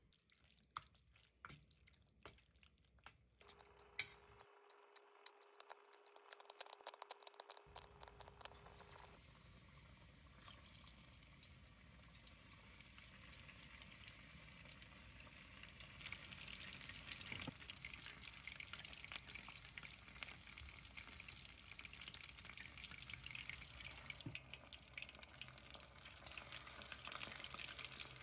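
Food frying in oil in a pan: a faint, even sizzle that grows louder about halfway through, with light utensil clicks in the first few seconds.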